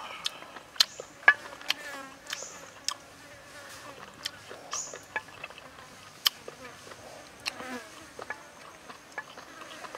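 A fly buzzing close by, mixed with sharp mouth clicks and short sipping slurps at a small porcelain cup of hot liquid.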